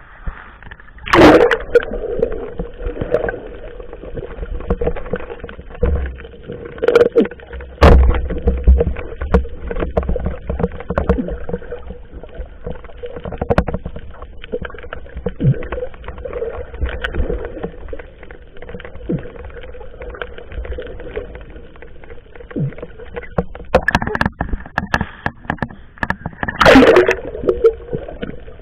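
Water splashing and sloshing around a fishing boat as a surround net is worked and closed, with sharp loud splashes or knocks about a second in, around seven to eight seconds in, and near the end, over a faint steady hum.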